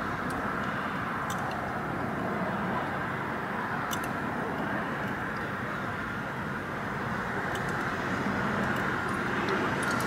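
Steady traffic and road noise heard from inside a stationary car, growing louder near the end as a vehicle approaches.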